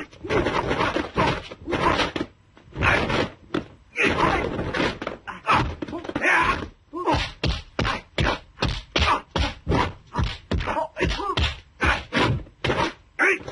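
Kung fu film fight sound effects: a rapid series of dubbed punch and kick smacks, mixed with the fighters' shouts and grunts. The blows come faster in the second half, about three a second.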